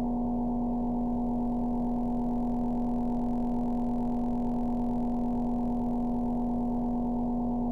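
Creepy sound-effect drone: a steady, unchanging low hum built on one strong tone with fainter tones layered above it, without breaks or changes.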